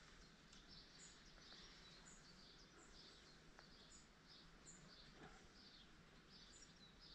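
Faint bird chirping in the background: short high notes repeating about once or twice a second, over near-silent outdoor ambience.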